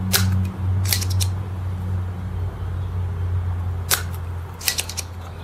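A few sharp clicks from a spring-loaded desoldering pump worked at a solder joint while a soldering iron heats it, over a steady low hum.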